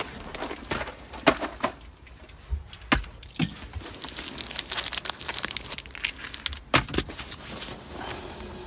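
Handling noises: a string of irregular clicks and knocks with light rustling, as things are picked up and moved about at close range.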